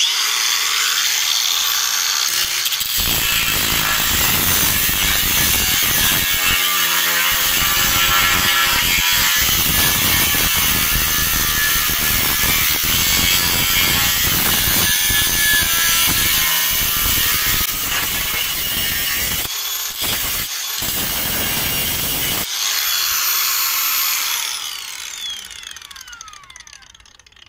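Makita DGA504Z 18 V cordless 125 mm angle grinder spins up and cuts through 3 mm cold-rolled steel plate with a cutting disc, with a short break partway through. Near the end it is lifted out of the cut, runs free with a high whine, then winds down with falling pitch.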